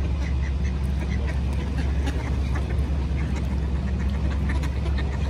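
Mallard ducks quacking in short, scattered calls over a steady low rumble.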